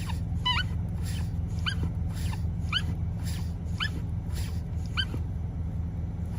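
A BMW F80 M3 making a rhythmic high-pitched squeak, a short rising chirp about once a second, over a steady low hum. The noise appeared after a brake fluid replacement.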